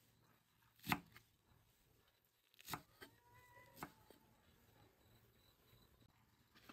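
Cleaver chopping fresh herbs on a wooden cutting board: three separate sharp knocks of the blade on the board, the first about a second in and the loudest.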